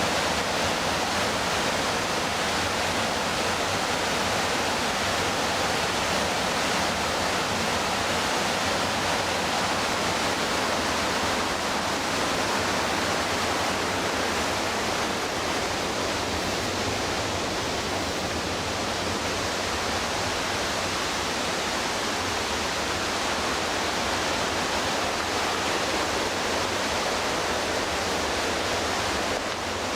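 The McKenzie River's whitewater rushing: a steady, unbroken noise of fast-falling water.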